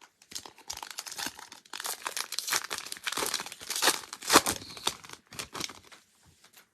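Crinkly plastic-foil trading-card pack wrapper being torn open and crumpled by hand, a dense run of crackling that tails off near the end.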